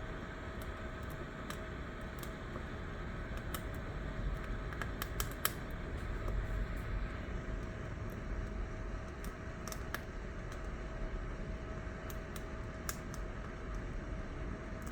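Firewood crackling in a small wood-burning roaster stove: scattered sharp crackles over a steady low hum with a faint steady tone.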